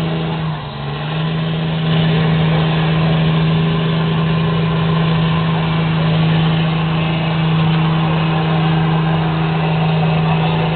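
Pickup truck engine held at high, steady revs as the truck churns through a mud pit. It dips briefly just under a second in, then runs a little louder and steady from about two seconds on.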